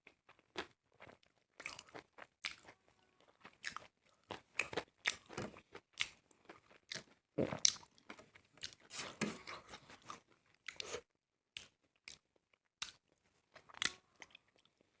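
A person chewing and crunching food close to the microphone: irregular crunches, bites and wet mouth sounds, busiest from about seven to ten seconds in.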